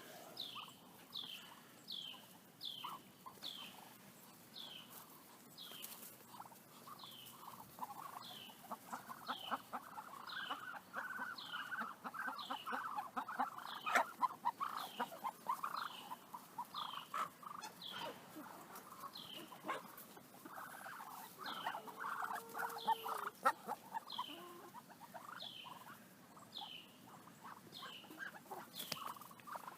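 Poultry flock clucking and chattering, busiest through the middle. A high, short, falling peep repeats about once a second over it.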